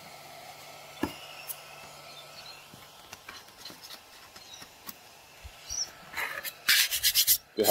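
Rubbing and scraping from handling the removable flexible build-plate sheet of a budget 3D printer, with scattered small clicks and then a quick cluster of loud scrapes about six seconds in. A faint low hum runs underneath for the first few seconds.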